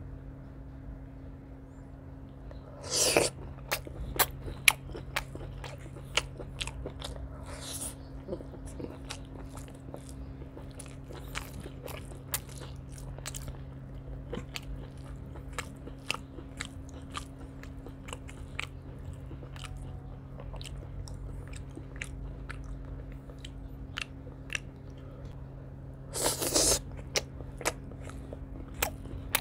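Close-miked eating of chicken liver and gizzard curry with rice: chewing and crunching with many small mouth clicks, and two louder crunchy bites, one about three seconds in and one near the end. A steady low hum runs underneath.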